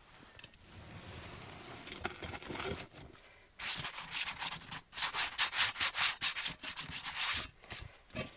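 Leather-gloved hands scraping and brushing sand and ashes off a pot buried in a fire pit's coals. A soft rubbing at first, then a run of louder, quick scraping strokes starting about three and a half seconds in.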